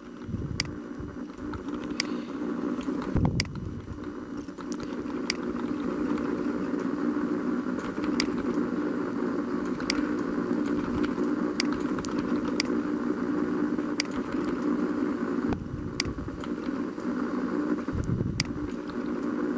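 Computer mouse clicking sharply, about once or twice a second, over a steady low hum.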